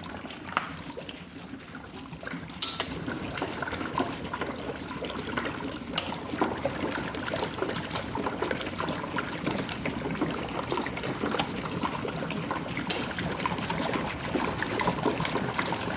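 HHO gas from a 354-plate electrolysis generator bubbling through water, a dense crackling, gurgling fizz. It grows louder over the first few seconds as more of the generator's cells are switched on and its current climbs toward 50 amps. A few sharp clicks stand out.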